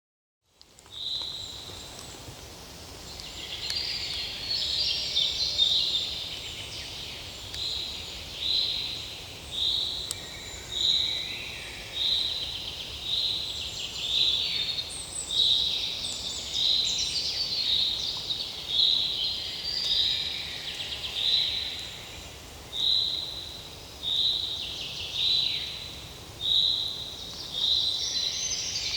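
Forest birds chirping: one bird repeats a short, high note about once a second while others add scattered chirps and trills.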